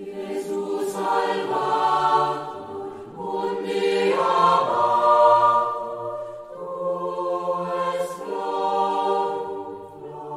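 A choir sings a slow, unaccompanied sacred chant in long held phrases. It starts suddenly out of silence, with brief breaks between the phrases.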